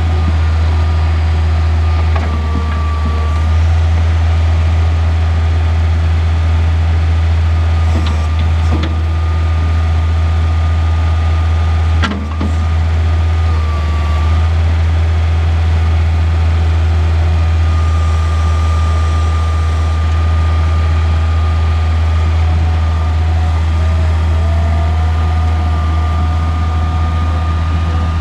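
Bobcat 743 skid steer running steadily, its engine giving a deep constant drone with a thin high whine over it. There is a short knock about twelve seconds in.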